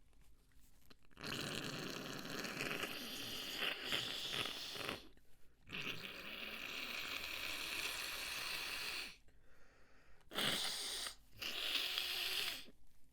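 A person blowing their nose hard, four long blows of a second to several seconds each with short pauses between, clearing mucus after a sneezing fit.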